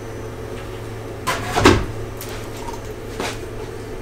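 A few short metallic knocks and clacks from a thin spring-steel flex plate being handled and set down onto a 3D printer's magnetic bed, the loudest about a second and a half in, over a steady background hum.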